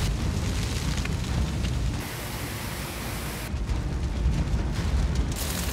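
Wildfire burning through brush and trees: a steady rushing noise with a low rumble. The hiss thins out for a couple of seconds past the middle.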